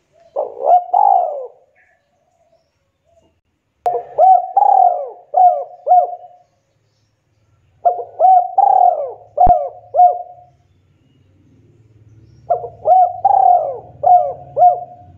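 Spotted dove (tekukur) cooing: four phrases of several short coos each, the first only two notes, spaced a few seconds apart.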